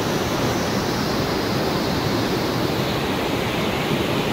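Steady rush of a mountain river pouring through rapids between large boulders.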